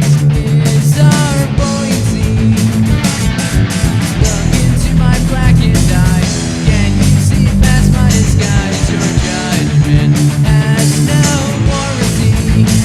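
Rock band playing an instrumental passage with electric guitar, bass and drums, with no singing.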